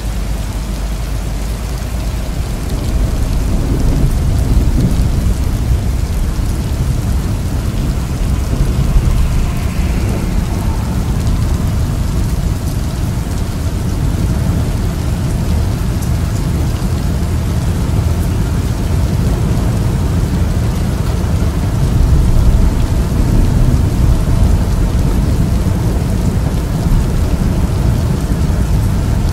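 Rain on a car's windshield and roof, heard from inside the moving car, under a deep rumble of thunder that swells about four seconds in and again about twenty-two seconds in.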